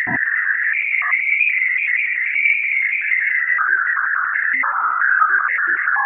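Sonification of radio waves that Juno's Waves instrument recorded during its 7 June 2021 Ganymede flyby, shifted into hearing range: a high, fluttering tone that rises a little, then slides down in pitch from about halfway through. The changes in pitch mark Juno crossing different regions of Ganymede's magnetosphere.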